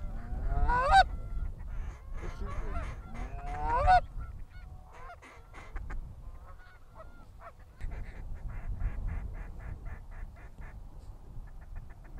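Geese honking and clucking, gliding calls that come thick in the first few seconds and then thin out. Later a fast, even run of short duck quacks, about five a second, follows over a low wind rumble.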